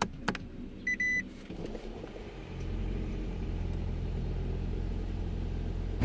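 Two clicks and a short beep as a 2006 Toyota Prius is switched on, then about two and a half seconds in its 1.5-litre gasoline engine starts and runs with a steady low hum as the car comes to READY.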